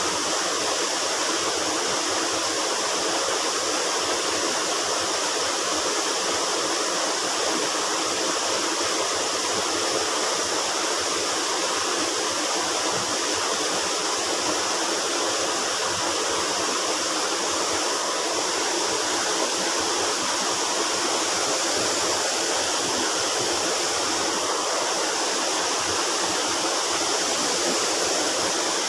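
River water flowing: a steady, even rush that holds unchanged throughout.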